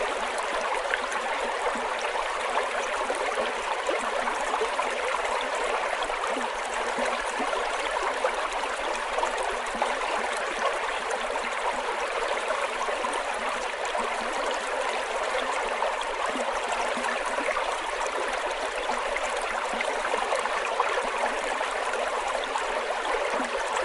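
Fast-flowing river rushing steadily over rocks and rapids.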